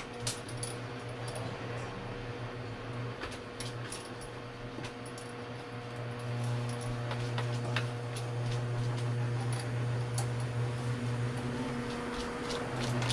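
Scattered metallic clicks and clinks from hands and tools working under a kitchen sink, over a steady low hum.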